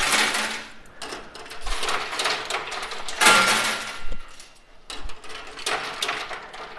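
Coin pusher machine: metal coins clattering as they spill off the pusher shelf into the tray. It comes in several bursts, the loudest about three seconds in.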